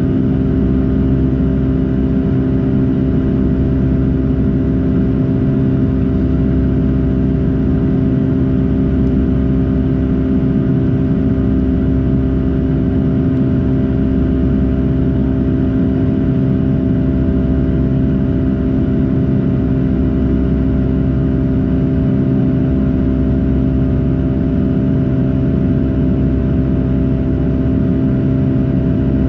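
Boeing 757-200 jet engines and airflow heard inside the passenger cabin: a loud, steady drone with a low rumble and a few constant hum tones, unchanging in pitch as the engines hold steady thrust in flight.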